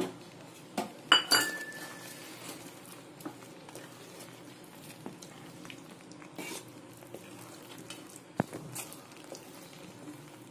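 Wooden spatula stirring thick semolina kesari in a non-stick pan: soft scraping and light knocks. A little over a second in come two sharp metallic clinks, one leaving a brief ringing tone.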